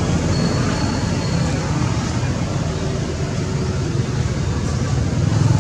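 Steady low rumbling background noise, with a thin high whistle lasting about a second near the start.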